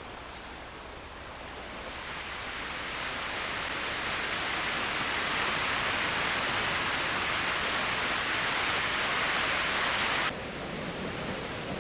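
A steady rushing hiss that swells over the first few seconds, then drops off suddenly near the end.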